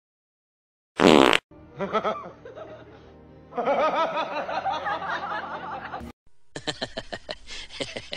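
A loud, short fart sound about a second in, followed by warbling comic music.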